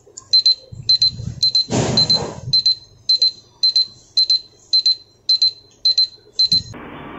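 Countdown timer alarm beeping as the 100-second challenge timer runs out: a short high beep about twice a second, about twelve times, stopping shortly before the end. A brief louder rush of noise comes about two seconds in.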